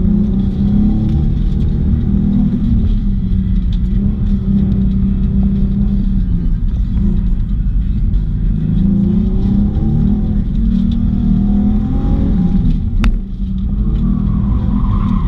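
Nissan 350Z's 3.5-litre V6, heard from inside the cabin, accelerating and easing off in turn around an autocross course, its pitch rising and falling again and again. A sharp click and a brief drop in engine sound come about thirteen seconds in.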